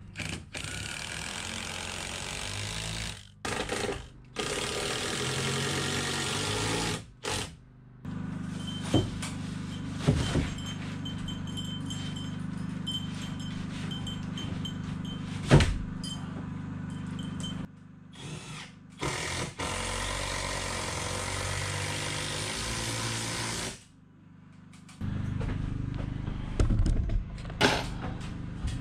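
Building work with a power tool running in stretches that start and stop abruptly, and a few sharp knocks in between.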